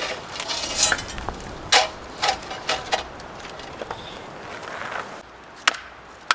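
A string of irregular clinks and knocks of hard objects, some with a short metallic ring, as gear or cookware is handled.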